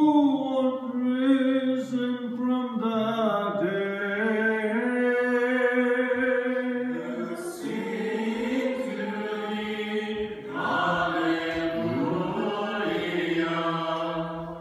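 Byzantine liturgical chant of the Orthodox Divine Liturgy, sung without instruments: male voices hold a long, drawn-out melodic line. The sound grows fuller about halfway through.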